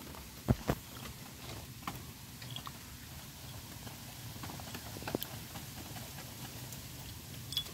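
A mongoose rooting through dry twigs and leaf litter: small scattered rustles and ticks, with two sharp knocks about half a second in and another about five seconds in.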